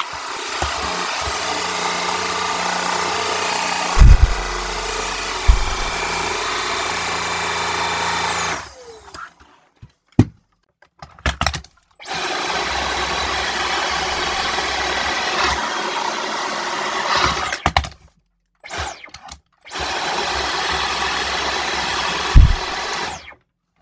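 Cordless stick vacuum running with a steady high whine, switched on for three stretches of several seconds each. Short gaps between the stretches hold clicks and knocks, and a few loud thumps fall while it runs.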